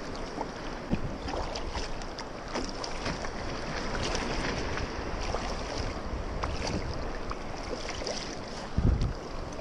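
Paddle strokes and small splashes of choppy seawater against a kayak hull, over a steady rush of wind on the microphone, with a louder low wind buffet near the end.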